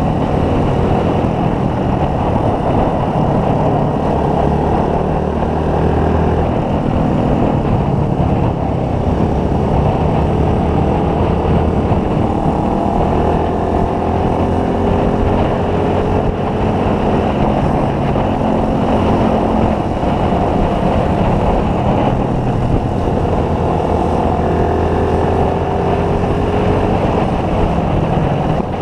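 Motorcycle engine running at a steady cruise over a constant rushing noise, its pitch drifting slowly up and down with small changes in speed.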